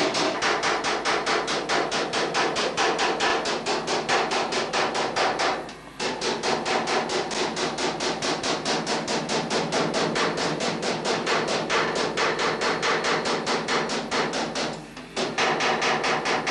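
Rapid, even hammer blows, one after another, with two short breaks: one about six seconds in and one near the end.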